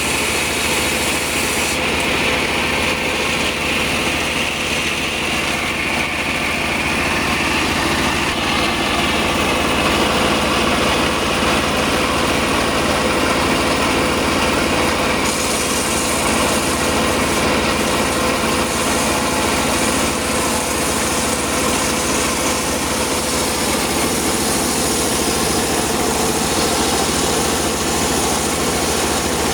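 Sawmill circular saw machine for sawing sengon wood, running steadily with a constant machine drone and a high whine that is strongest in the first few seconds.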